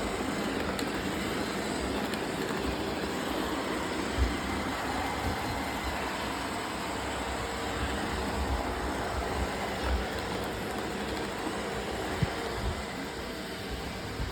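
Robotic vacuum cleaners running: a steady whirring hiss with a few dull low bumps.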